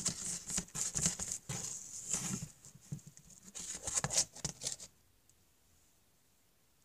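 A quick, uneven patter of light taps and rustles, as of a plastic toy horse being hopped and pushed across the arena floor by hand to make its hoofbeats. The tapping stops about five seconds in.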